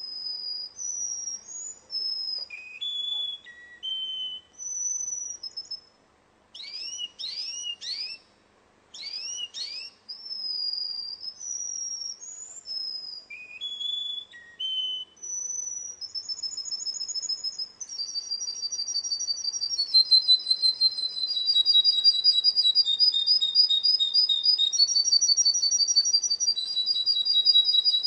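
Russian song canary singing: a run of clear whistled notes and quick downward-sweeping phrases, then, about halfway through, a long rapid rolling trill that is the loudest part and carries on to the end.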